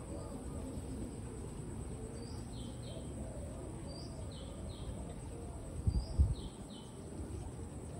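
A bird's high call, one short note followed by two lower ones, repeated every couple of seconds, with softer lower-pitched bird calls underneath. A brief low rumble about six seconds in.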